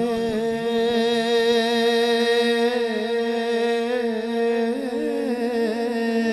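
A man singing a naat, holding one long drawn-out note on a single vowel, mostly steady in pitch with a few small wavering turns.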